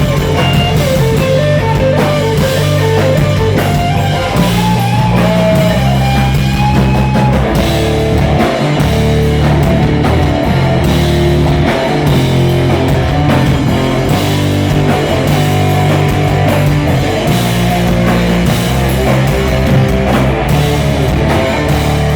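Rock music with guitar and drum kit, a guitar melody over a steady beat and low bass notes.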